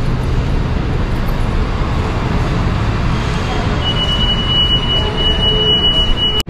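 Busy subway station din: a steady low rumble and crowd noise echoing under a concrete concourse. A thin, steady high whine comes in about four seconds in and holds until it cuts off abruptly near the end.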